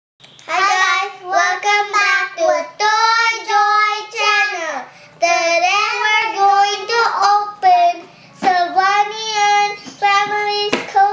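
A young child singing in several phrases of held notes, with short breaks about five and eight seconds in.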